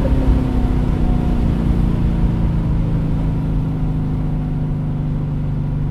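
Straight-piped 2013 Corvette Grand Sport's V8, fitted with long-tube headers, running at a steady engine speed. The exhaust note eases off slightly.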